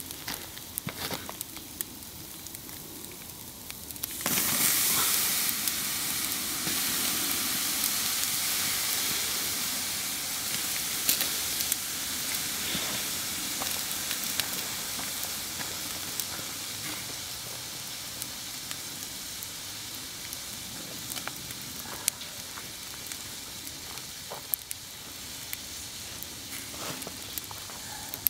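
T-bone steak sizzling on a hot grill grate, a steady hiss with scattered crackles and pops. The sizzle jumps up sharply about four seconds in, then slowly eases off.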